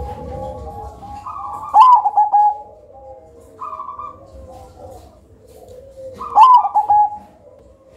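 Zebra dove (perkutut) cooing: a continuous run of soft, low coos, broken twice by a loud phrase of quick falling notes, about two seconds in and again near six and a half seconds.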